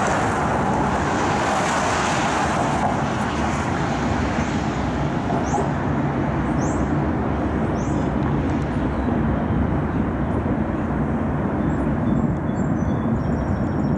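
Four diesel freight locomotives running past with a low, steady engine rumble, mixed with road traffic noise that is strongest in the first few seconds.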